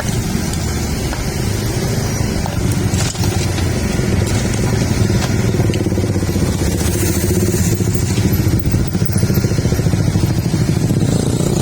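Heavy construction machinery's diesel engine running steadily, a little louder from about three seconds in.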